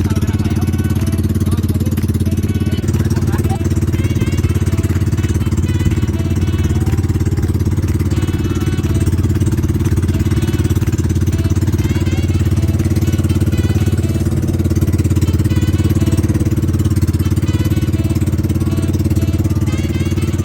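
Small boat's engine running steadily at a constant speed, one continuous drone.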